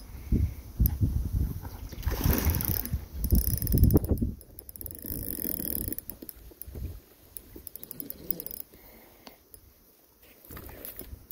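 Fishing reel clicking rapidly while a carp is played on an ultralight rod; the ticking is densest about four to six seconds in. Heavy thumps and rubbing from handling the rod and phone are loudest in the first four seconds, and it all goes quieter after about seven seconds.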